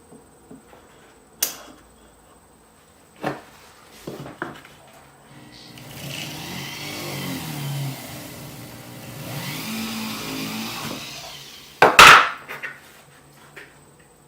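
A few light knocks, then a small electric power tool runs for about five seconds with its pitch wavering. It stops, and a loud sharp clack follows near the end.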